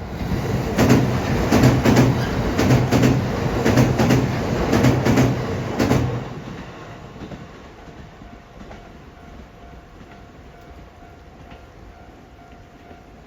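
EF65 electric locomotive running light past the track, its wheels clattering in a steady rhythm over rail joints with a low motor hum underneath. The sound drops away about six seconds in as the locomotive moves off.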